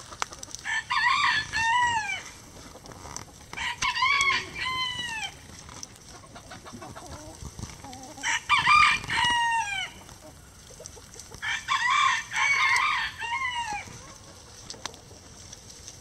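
A rooster crowing four times, roughly every three to four seconds. Each crow is a loud cock-a-doodle-doo that ends in a falling note.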